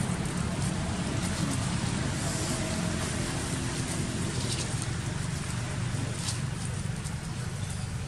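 Steady outdoor background rumble and hiss, with a few faint ticks from about halfway through.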